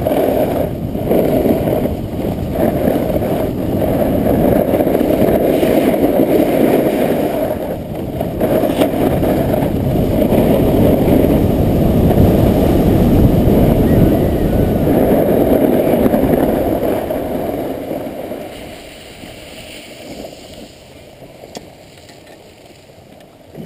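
Loud, muffled rumble of wind and a snowboard running fast over groomed snow, picked up by a GoPro camera's microphone. It dies down near the end as the board slows to a stop.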